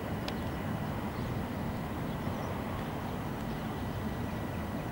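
EU07 electric locomotive hauling a passenger train as it pulls away slowly: a steady low rumble of the locomotive and rolling carriages, with one sharp click just after the start.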